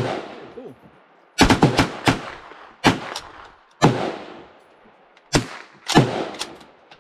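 Gunfire from firearms on a shooting range: about a dozen sharp single shots at irregular intervals, some in quick runs of two or three, each with a long echoing tail under the covered firing line.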